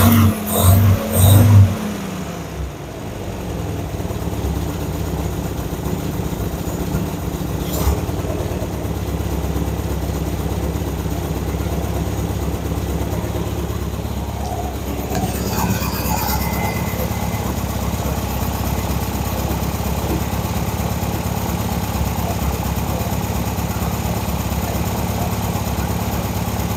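1961 Metropolitan's 1.5-litre BMC B-series four-cylinder engine, revved with the throttle a few times at the start, then settling into a steady idle as it warms up.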